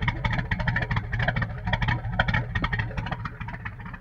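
Motorboat running at speed: the hull slaps on the water and spray splashes over the bow in many quick knocks and splashes, over a steady engine drone. It eases off near the end.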